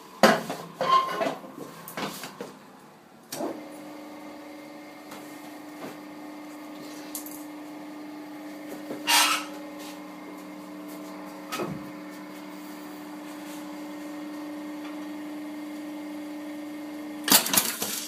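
KMS 666 button-setting machine running: a knock about three seconds in, then a steady hum. Scattered knocks and clicks sound over it, and a quick burst of loud mechanical clacks comes near the end.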